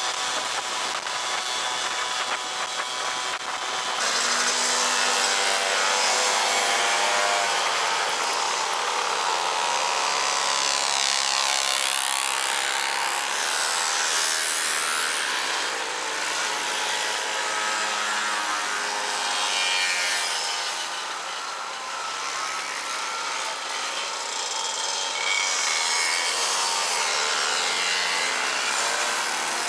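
A stream of small two-stroke moped engines buzzing as riders pass one after another, with each engine's pitch gliding up and down as it goes by.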